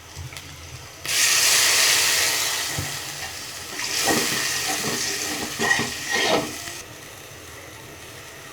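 Food frying in hot oil in a pan, breaking into a loud sizzle about a second in, then stirring with a few scraping knocks of a spatula against the pan. The sizzling cuts off suddenly near the end.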